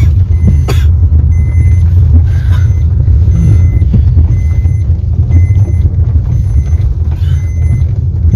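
Car driving slowly over a rough dirt track, heard from inside the cabin: a steady engine and road rumble with occasional knocks from the bumps. A faint beep repeats now and then.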